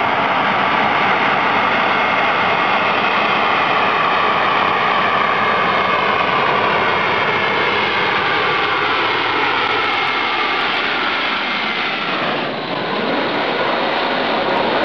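Twin-engine jet airliner coming in to land and passing low overhead: a loud, steady jet engine noise with whining tones that slowly fall in pitch. The sound dips and changes about twelve seconds in as the plane goes over.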